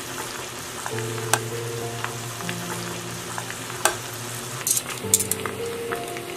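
Battered chicken wings deep-frying in a small saucepan of hot oil, a steady sizzle, with several sharp clicks of metal tongs.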